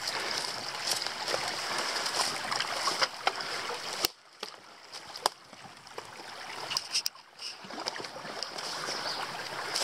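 Small rocky creek running, a steady rush of water, with scattered clicks and footsteps along the bank. The rush drops away for about three seconds partway through, then returns.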